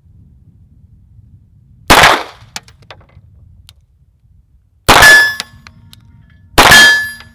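Three 9mm pistol shots from a Glock 17 MOS, the first about two seconds in and the other two closer together near the end. The second and third are each followed by a brief metallic ring from the 10-inch steel gong, the sign of a hit on steel.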